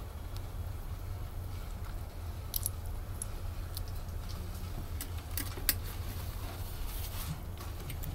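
Scattered light metallic clicks and taps of an industrial sewing machine's bobbin and bobbin case being handled as the empty bobbin is replaced, over a low steady hum.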